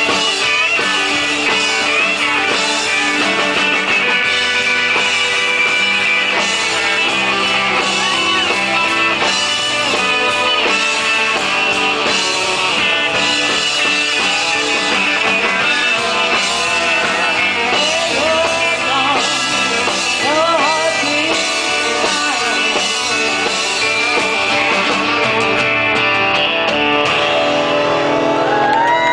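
Live rock band playing an instrumental passage, electric guitar to the fore over bass and drums. Near the end, whoops and cheers from the crowd start to come through.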